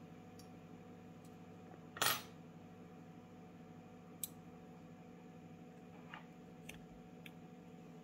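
Small metal lock parts clicking and clattering as the cylinder's core is worked free by hand: one louder metallic clatter about two seconds in, a sharp click a couple of seconds later, then a few light ticks.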